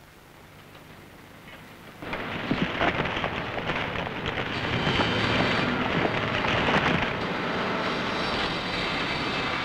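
Cableway machinery and a concrete bucket on a dam construction site: a low hum, then about two seconds in a loud, dense rattling and clanking din starts suddenly and keeps going.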